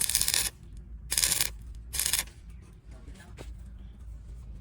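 Arc welder crackling in three short bursts of about half a second each in the first two seconds, typical of tack welds on steel.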